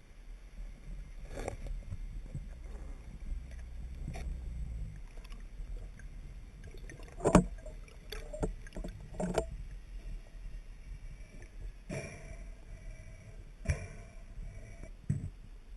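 Low muffled rumble of water with scattered knocks and clicks. The loudest is a sharp knock about seven seconds in, and several smaller ones follow over the next eight seconds.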